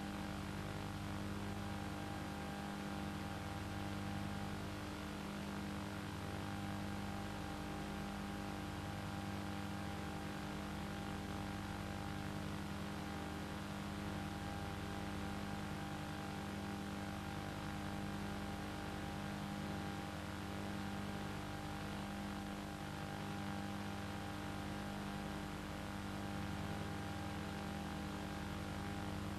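A steady mechanical hum with several constant tones over hiss, swelling slightly every few seconds.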